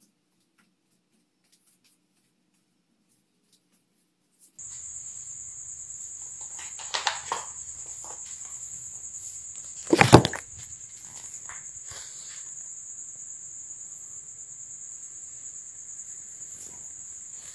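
Near silence, then about four and a half seconds in a steady high-pitched chirring of crickets starts up over a low hum and runs on. Two sudden knocks land about seven seconds in, and a louder thump follows at about ten seconds.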